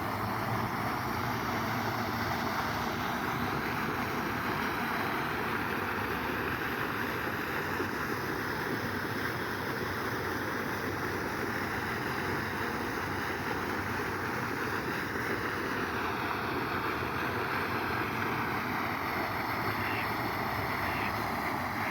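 Steady rushing noise with no changes, with a few faint short high sounds near the end.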